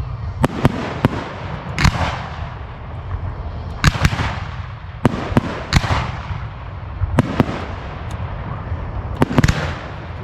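Aerial fireworks bursting: about a dozen sharp bangs at irregular intervals, some in quick pairs, several trailing off in echo.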